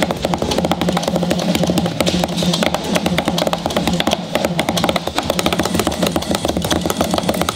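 Two drumsticks beating a fast, continuous roll on a flexible roll-up drum pad, a dense stream of rapid taps over a steady low hum.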